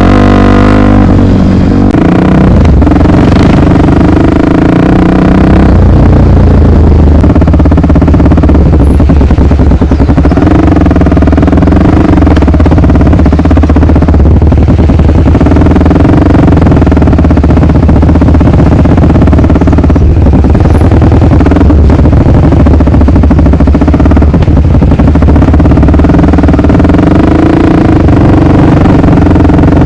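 Honda XR250 Tornado's single-cylinder four-stroke engine, loud and running under way, its note rising and falling gently with the throttle.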